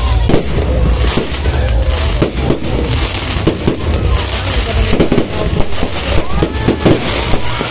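Aerial fireworks bursting overhead: a dense, irregular run of sharp pops and bangs over a low rumble.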